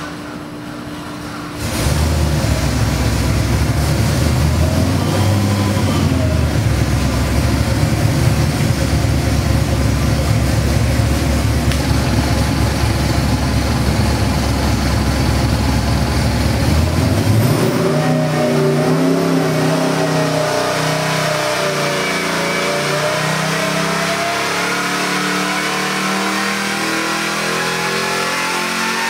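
Whipple-supercharged Ford 7.3L Godzilla V8 running on an engine dynamometer. It comes in suddenly about two seconds in and runs steadily at around 1000 rpm, then from about eighteen seconds in it revs up in a steady rising pull under dyno load during a sweep test, climbing past 5000 rpm.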